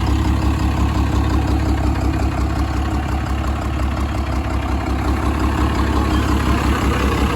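Diesel truck engine idling steadily with a low, evenly pulsing rumble.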